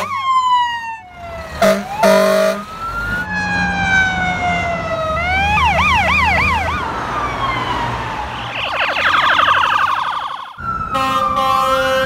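Fire truck sirens in a string of short clips: wailing tones gliding down and up, a fast yelp about halfway through, and air horn blasts, two short ones about two seconds in and a long one starting near the end.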